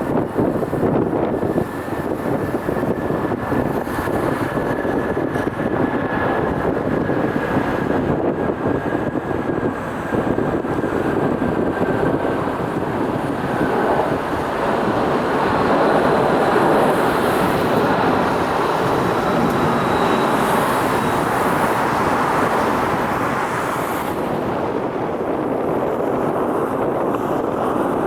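Jet airliner engine noise, a steady rush with a thin whine that slowly falls in pitch over the first half and swells a little in the middle.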